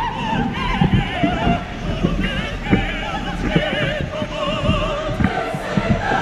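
Background music: voices singing in a classical, operatic style with strong vibrato, over irregular low thumps.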